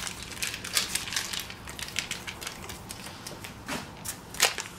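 Foil cream cheese wrapper crinkling and crackling as a block of cream cheese is peeled and squeezed out of it into a stainless steel mixing bowl, with two sharper crackles near the end.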